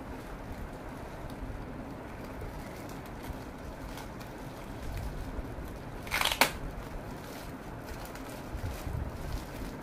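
Clear plastic bag crinkling as hands handle and unwrap a small item, with one loud, sharp crackle of the plastic about six seconds in.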